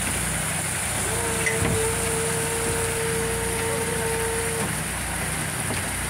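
Steady drone of running machinery during a tuna unloading. A single steady mid-pitched tone starts about a second in and cuts off after about three and a half seconds.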